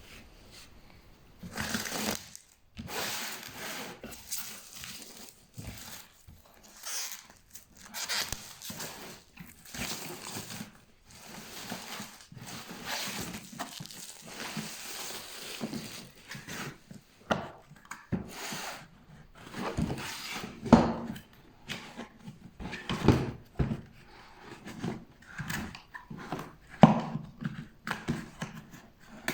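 Irregular handling noises: rustling, scraping and sharp knocks, with no motor running.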